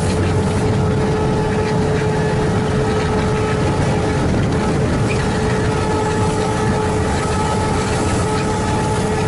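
WDG-3A ALCO diesel locomotive's 16-cylinder ALCO 251 engine running steadily under load, a deep continuous chugging with a steady whine above it.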